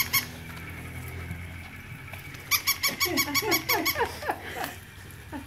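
Battery-operated walking toy puppy squeaking in a rapid, even run of electronic yaps, starting about two and a half seconds in and lasting about two seconds, over a low steady hum.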